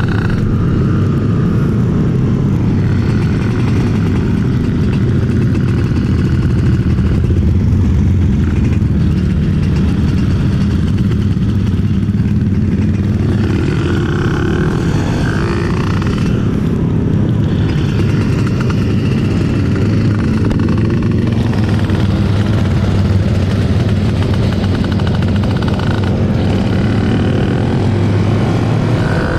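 Yamaha F1ZR two-stroke engine running through a KBRS aluminium slip-on silencer, ridden steadily at road speed.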